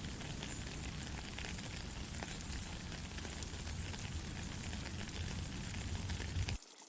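Steady rain falling, a constant hiss with scattered sharp drop ticks; it cuts out abruptly just before the end.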